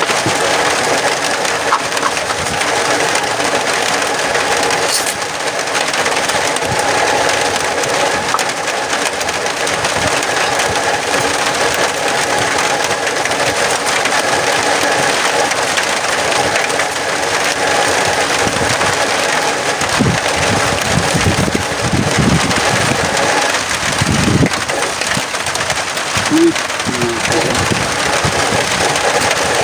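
Strong wind blowing steadily, with gusts buffeting the microphone about two-thirds of the way through.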